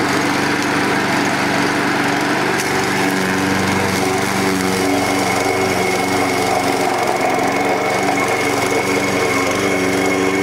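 Small petrol lawnmower engine running steadily after being pull-started without choke, its carburettor freshly cleaned of rust debris and fitted with a new gasket.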